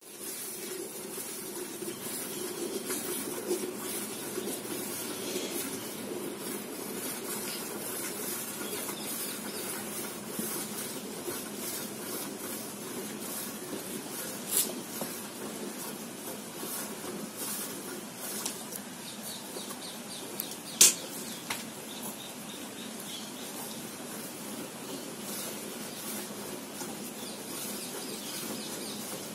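A cow being hand-milked into a metal bucket: milk streams hissing into the pail in quick irregular squirts, with two sharp knocks against the bucket partway through.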